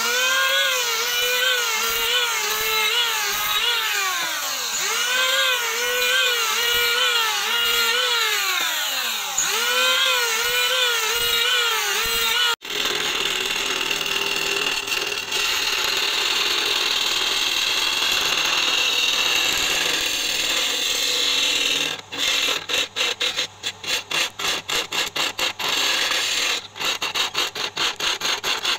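Electric hand planer running over a plank, its motor whine dipping and recovering again and again as the blades bite and clear. About twelve seconds in it gives way suddenly to a wood lathe turning a wooden handle, with a hand-held chisel scraping the spinning wood in a steady hiss that stutters rapidly near the end.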